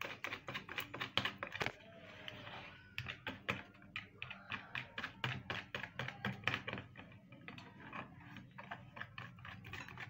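Wire whisk beating egg, milk and flour batter in a bowl, its wires clicking against the sides in quick, regular strokes, about four or five a second, with a brief lull about two seconds in.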